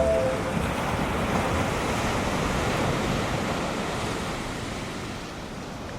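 Ocean surf breaking and washing, a steady rush that slowly fades toward the end.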